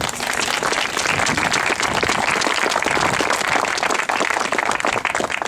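Crowd applauding: a steady round of many hands clapping.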